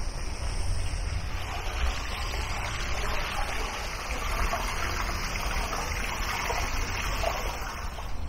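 Running water trickling and splashing from a Japanese garden's water feature. It grows louder a second or two in and eases near the end, over a steady low rumble.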